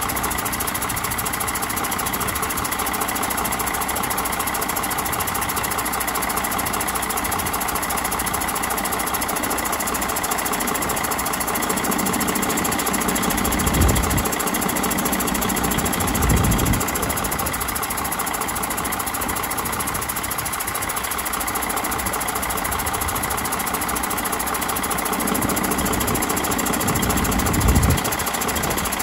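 2006 Mercedes MBE4000 inline-six diesel truck engine idling steadily, with three brief low bumps partway through and near the end.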